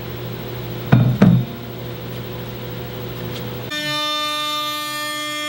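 Two sharp metal clinks as a router bit and collet wrench are handled, over a low steady hum. About two-thirds of the way in, a CNC router spindle's steady high-pitched whine with many overtones sets in abruptly.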